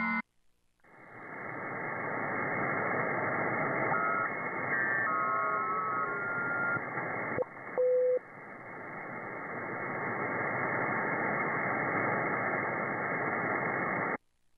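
Shortwave receiver audio from an RSP1A software-defined radio tuned near 5.29 MHz: band static hiss that swells up after a brief dropout, with two faint steady whistles of carriers in the passband. Short beeping tones come and go a few seconds in, and a brief louder beep comes about eight seconds in. The audio cuts off shortly before the end.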